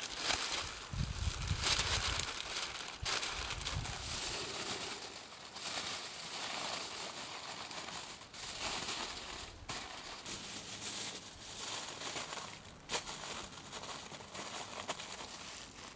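Aluminium foil and paper crinkling and crackling irregularly as a food parcel is folded and wrapped by hand, with a few sharper crackles.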